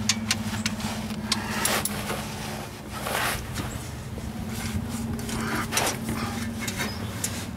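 Socket ratchet being worked on a pickup truck's oil drain plug: scattered irregular clicks and light metal taps, over a steady low hum.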